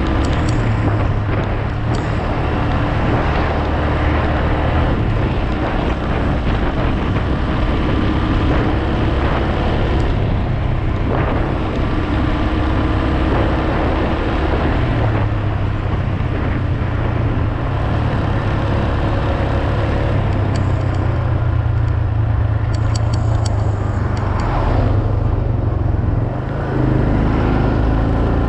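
Small motorbike's engine running steadily under way, with road and wind noise; the level dips briefly near the end.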